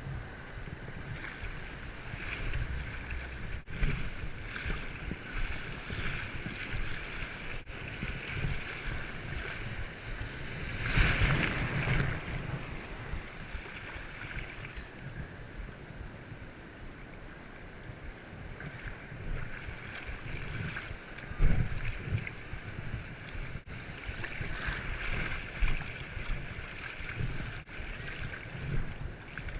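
Ocean waves washing against rocks, with wind buffeting the microphone. A bigger surge of water comes about eleven seconds in, and a sharp low thump about twenty-one seconds in.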